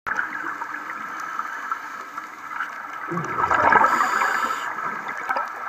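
Scuba regulator breathing and bubbles heard underwater through a camera housing: a steady watery hiss, with a louder swell of exhaled bubbles about three seconds in that fades after a second or two.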